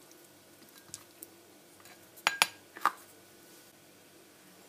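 A few light clicks and clinks of kitchen utensils against ceramic bowls. The three loudest come a little past halfway, one leaving a short ring.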